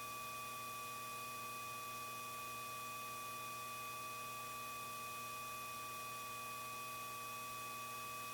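Steady electrical hum with several constant high whining tones and faint hiss on a light aircraft's intercom audio feed, with no speech or radio traffic on the line.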